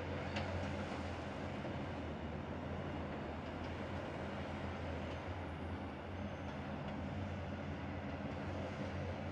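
Heavy demolition excavator working an MBI MS140 hydraulic demolition shear, its diesel engine and hydraulics giving a steady low drone. A brief knock comes about half a second in.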